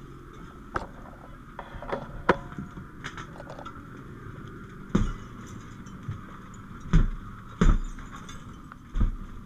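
Metal gear clinking and rattling on a moving firefighter, with scattered sharp clicks and then several heavy thumps, about five, seven, seven and a half and nine seconds in.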